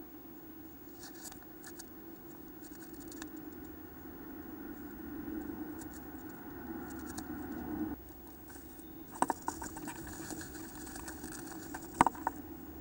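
Great tit moving about inside a wooden nest box, its claws scratching and clicking on the wood: a few sharp clicks about nine seconds in and again near the end, over a steady low hum.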